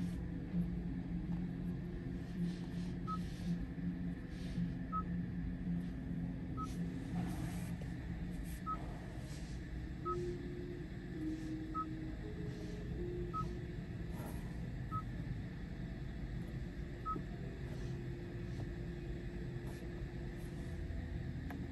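2023 Genesis G90 cabin: a steady low hum with scattered light clicks and taps as its controls and trim are handled, and a faint short beep about every one and a half to two seconds.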